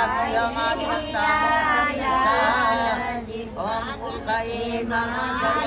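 High-pitched voices singing a wavering melody, with a steady held tone underneath.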